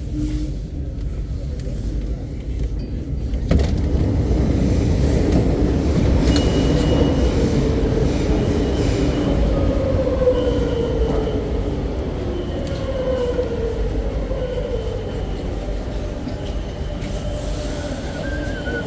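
Madrid Metro train running, heard from inside the carriage: a steady rumble that grows louder about three and a half seconds in, with a motor whine that slides down in pitch several times through the second half. A high tone comes and goes over the rumble.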